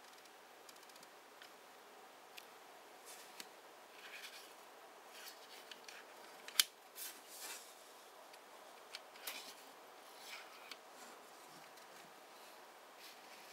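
Handling noise of a Nikon TC-16A teleconverter turned in the fingers: faint scattered small clicks and rubbing against its metal mount, with one sharper click about six and a half seconds in.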